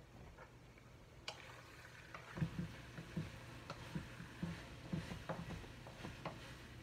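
Irregular light clicks and low knocks of cookware and utensils being handled in a kitchen, starting about a second in and coming more often from halfway through, over a steady low hum.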